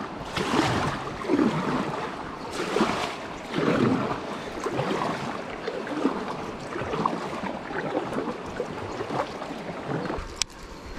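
Water splashing and rushing around a kayak on a flowing river, in uneven surges about every second.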